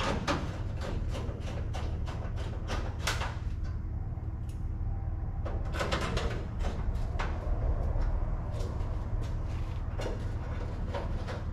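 Irregular clicks, taps and scrapes of a screwdriver and screws as the headlight surround of a pickup is fastened by hand, over a steady low hum.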